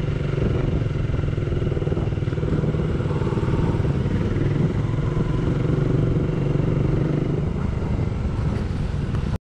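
Motorcycle engine running steadily at cruising speed, heard from the rider's own bike with wind and road rumble on the microphone. The sound cuts off abruptly near the end.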